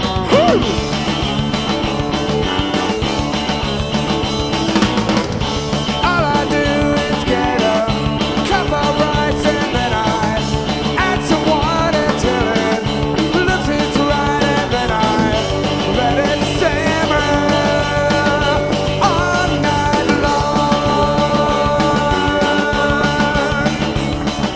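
Live rock band playing the opening of a song, with the full band coming in loud right at the start after a guitar lead-in.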